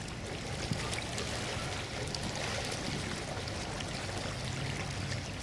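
Water lapping and trickling, with a low steady hum underneath that grows a little near the end: the twin diesel engines of the motor ship MS Graf Zeppelin as it comes into harbour.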